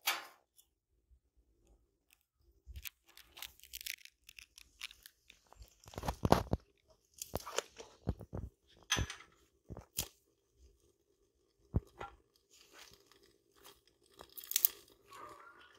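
Small dry sticks snapped by hand and fed into a rocket stove's feed tube: a run of irregular cracks and crunches, loudest about six seconds in.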